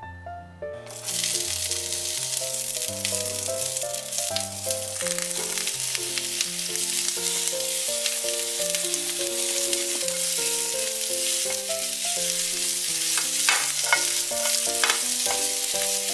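Strips of bell pepper sizzling in hot oil in a frying pan as they are stir-fried with a spatula. The sizzle starts about a second in and holds steady, with a few clicks of the spatula near the end, over soft background music.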